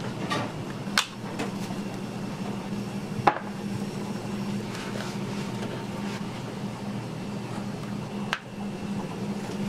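Large SPAM tins opened with their wind-up keys: the metal strip scraping and creaking as it is rolled off, with three sharp metallic clicks or knocks, about a second in, at about three seconds and near the end. A steady low hum runs underneath.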